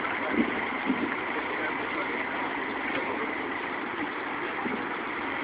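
Steady vehicle noise, with two brief knocks about half a second and a second in.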